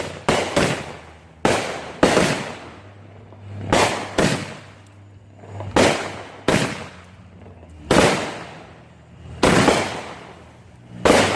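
Consumer fireworks going off: about a dozen sharp bangs at uneven intervals of half a second to two seconds, each trailing off in a brief echo.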